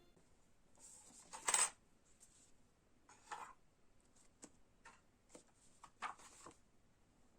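Soft clinks, taps and rustles of small objects being handled, scattered and irregular, the loudest a rustle about a second and a half in.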